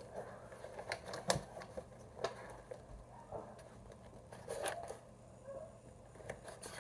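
Cardboard box and its paper wrapping being handled and opened: scattered light clicks, taps and brief rustles as the flaps and wrapping paper are moved.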